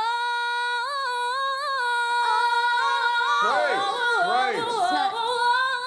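A woman singing a cappella, holding one long high note for about three and a half seconds, then breaking into quick melodic runs.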